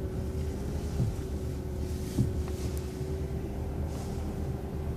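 Inside an MCO ViewMaster transit bus: the engine's steady low rumble with a constant hum over it, and a few faint knocks and rattles from the cabin.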